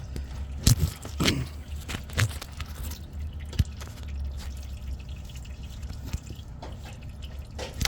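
Irregular drips of transmission fluid and a few sharp light clicks as a new Allison transmission spin-on filter is threaded back on by hand, over a steady low hum.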